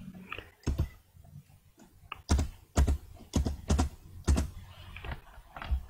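Computer keyboard keystrokes typing a number: a dozen or so separate, unevenly spaced clicks.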